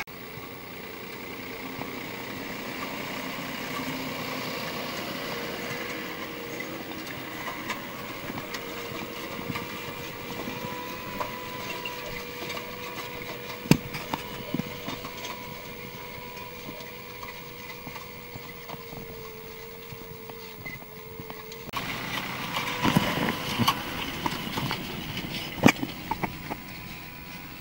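Erkunt Nimet 70e tractor running steadily as it pulls an İrtem pneumatic precision seed drill across tilled soil, with a steady whine. About 22 seconds in the sound becomes louder and closer, with sharp knocks and clatter as the planter passes.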